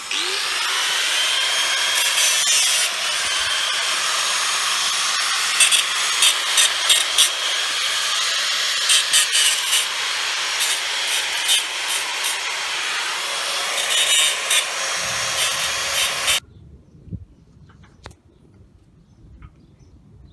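Handheld power tool spinning up at the start and then running under load with a steady high whine and rough cutting or grinding noise, with repeated sharp scrapes, until it cuts off suddenly about sixteen seconds in.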